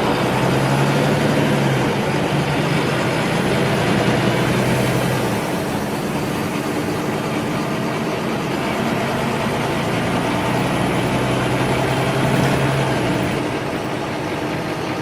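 Cabin noise inside a city bus: the engine hums under steady road and interior noise. The engine note is strongest in the first few seconds and again near the end, with a faint high whine gliding up and down above it.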